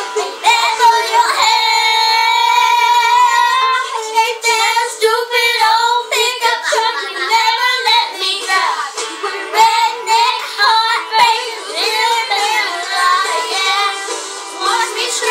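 Two young girls singing a country-pop song together, holding one long note about two seconds in.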